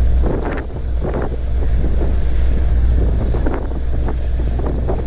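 Strong wind buffeting the microphone aboard a boat under way: a loud, constant low rumble with irregular rushing gusts on top.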